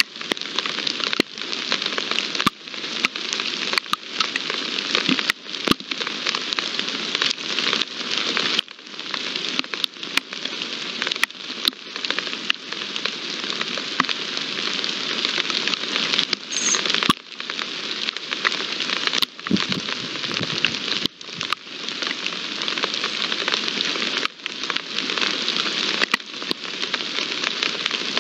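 Steady rain falling: a dense, even hiss broken by frequent irregular sharp clicks of single drops striking close by.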